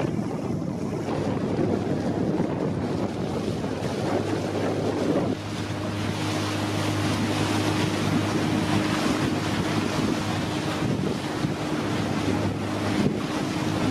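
Small motorboat running across open water: wind buffeting the microphone and water rushing past the hull over the motor. About five seconds in, a steady low engine hum comes through more clearly.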